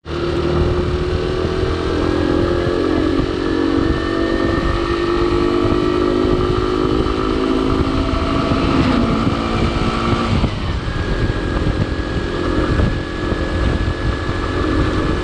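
Motorcycle engine running while riding, heard from the rider's seat, with wind noise on the microphone. The engine note climbs slowly, then drops about ten seconds in.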